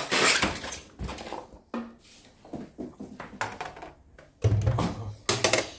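Handling noise from a cardboard shipping box being moved: rustling and scraping with a few dull thunks. There is a loud burst at the start, scattered knocks and clicks, and another loud stretch about four and a half seconds in.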